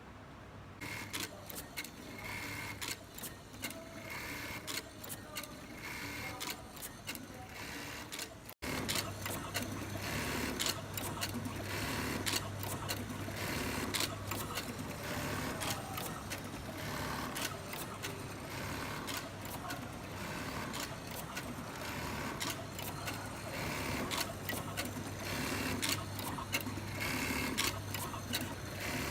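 An industrial button-attaching sewing machine with an automatic button feeder runs cycle after cycle: a steady motor hum, short bursts of fast stitching and repeated mechanical clicks as each button is fed and sewn. It gets louder about a third of the way in.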